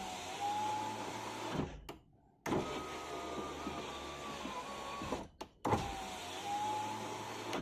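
VAZ cable-type electric window regulator running the glass three times in a row, with short pauses between runs and a thud as each run starts. The motor whine is steady and a little higher on the middle run, and it runs quietly without knocks or clicks, its cables re-seated in the pulley grooves.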